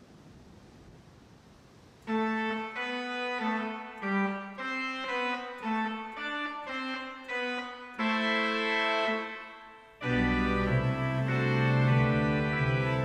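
Organ-toned keyboard music starting about two seconds in: a slow single-note melody, then full sustained chords with a deep bass from about ten seconds in.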